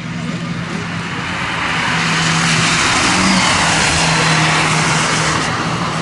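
Toyota HiAce rally van passing on wet tarmac: its engine holds a steady note under a loud hiss of tyres and spray, which swells over the middle seconds and eases as the van moves away.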